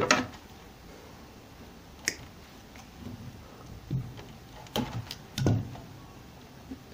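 Soft handling noises of wires being worked by hand with pliers, with a few short sharp clicks: one about two seconds in and two close together near five seconds.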